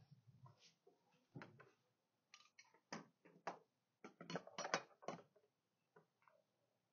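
Faint, scattered clicks and knocks of metal roof-rack clamp hooks being handled and tried against the car's roof frame, bunched together in the middle.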